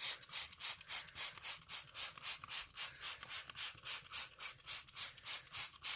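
A trigger spray bottle of Clorox pet urine remover being pumped rapidly, a quick even run of short hissing squirts, about four or five a second, soaking a carpet stain.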